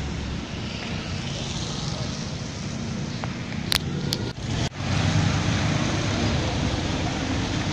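Slow traffic passing on a wet road: motorcycle and car engines running, with tyre hiss on the wet asphalt. There are a few sharp clicks and brief dropouts about four seconds in, and the engine rumble grows louder after them.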